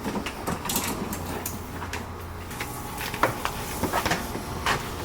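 Pressure washer hose being pulled off its retractable reel and dragged along the floor, with scattered clicks, knocks and scrapes.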